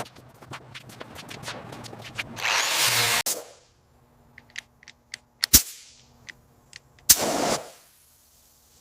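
Compressed air blowing in short hissing bursts, the first lasting about three seconds and ending abruptly, another near the end. Between them come light clicks and one sharp knock about halfway through.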